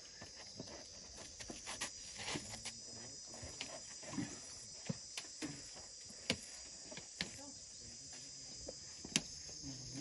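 Steady high insect chirring, with scattered sharp snaps and rustles of an elephant tearing up grass with its trunk while grazing.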